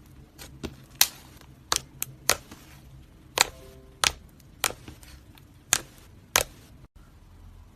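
Slime being pressed and worked, giving off about a dozen sharp, irregularly spaced clicking pops.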